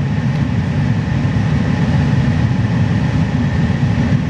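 Steady low rumble of a vehicle driving, heard from inside the cab, with a faint high steady whine above it.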